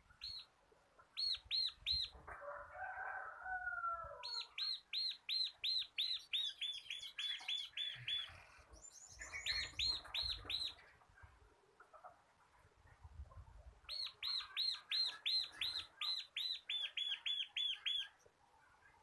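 Bar-winged prinia (ciblek) singing its rapid rolling song: runs of quick, evenly repeated high chirps, several of them separated by short pauses. A brief lower warbling phrase comes about two to four seconds in.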